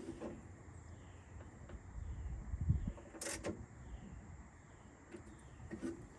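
Handling noises from work inside a truck door: scattered clicks and knocks, with one louder sharp clack about three seconds in.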